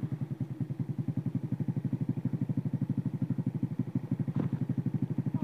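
Small motorcycle engine running at low revs in an even stream of pulses, about fourteen a second. A short click sounds about four seconds in.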